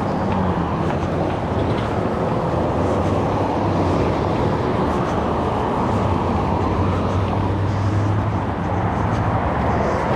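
A car driving along the road: steady road and engine noise with a low hum.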